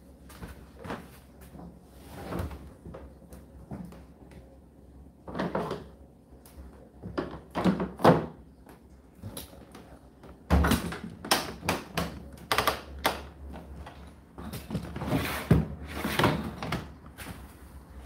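Knocks and clunks of a condenser tumble dryer's door being handled and pushed shut, in several irregular bumps, the loudest a sharp knock about eight seconds in.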